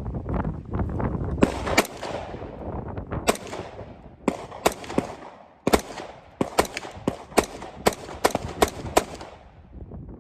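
About a dozen rifle shots from a DPMS AR-15 firing .223 rounds. They come at an uneven pace, some in quick pairs, each a sharp crack with a short tail.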